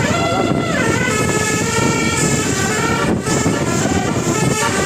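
Indonesian bus 'telolet' multi-trumpet horn playing a melody of changing notes over a steady low rumble.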